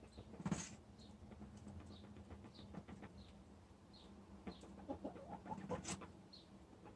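Domestic hens in a coop making faint, short, high chirps every second or so, with scratching in bedding and a couple of louder scrapes, over a low steady hum.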